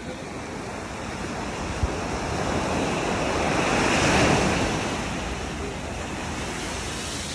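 Small ocean waves breaking and washing up the sand at the water's edge, the rush of surf swelling to a peak about four seconds in and then easing as the water draws back, with some wind on the microphone.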